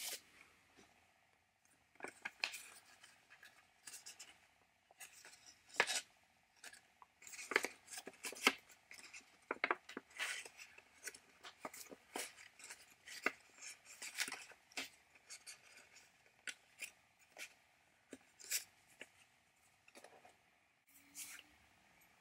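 Hands handling a paper envelope and small carburetor gaskets: irregular light rustles, scrapes and taps, with a few sharper clicks.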